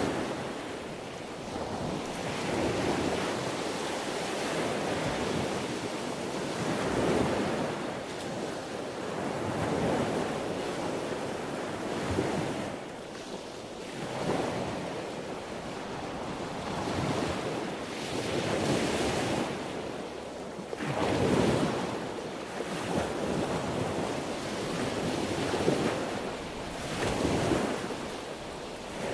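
Ocean waves breaking and washing on the shore, the surf swelling and easing every few seconds, with some wind noise.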